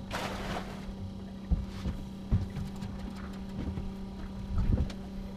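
Steady low hum of the fishing boat's engine running, with a brief rush of noise at the start and a few scattered knocks and thumps on deck.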